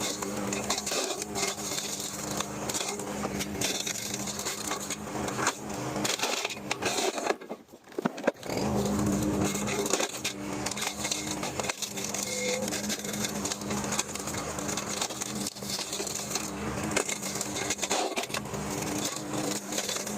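Lawnmower engine running steadily while its blade hits and chews up tree limbs, with many short cracks and snaps over the engine hum. The sound cuts out briefly about seven and a half seconds in, then resumes.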